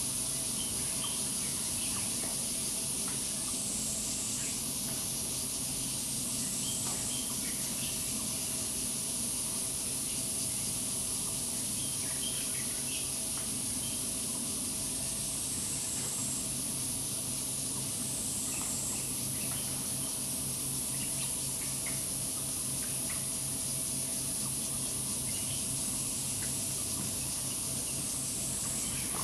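Steady high-pitched insect chorus that dips briefly lower in pitch a few times, with scattered faint chirps.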